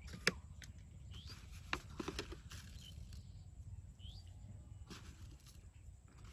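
Sharp clicks and taps of a plastic jar and bottle being handled while fishing bait is mixed on a steel plate, the loudest a single click just after the start. Two short rising bird chirps come through over a low steady rumble.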